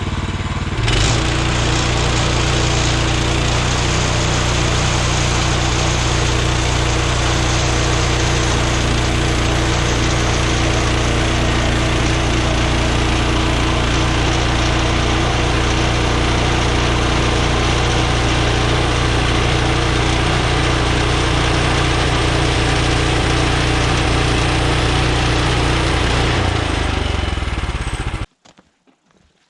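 Woodland Mills HM126 portable bandsaw mill's small gas engine running steadily under load as the dull band blade rips through maple; it gets a little louder about a second in. Near the end the sound cuts off abruptly, which the operator's remarks put down to the engine running out of gas.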